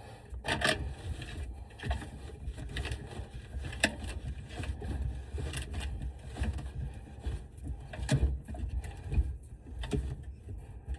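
Garbage disposal being worked and turned to free it after a broken plate piece jammed it: irregular scrapes and knocks over a low rumble. The motor turns normally, so it is not seized.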